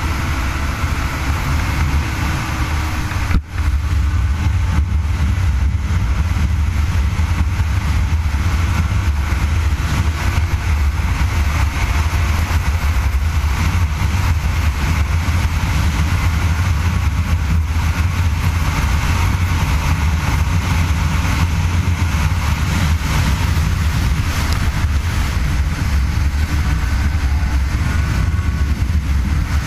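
Snowmobile running steadily at high speed, a loud continuous low rumble with a brief drop in level about three and a half seconds in.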